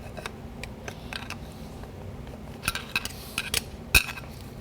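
Light metallic clicks and clinks of steel transmission parts and hand tools being handled on the workbench, scattered irregularly, with a small run of them past the middle and one sharper clink near the end.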